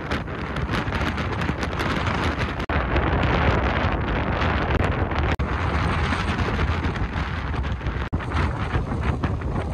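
Wind buffeting the microphone: a steady, dense low rumble and hiss that cuts out for an instant three times.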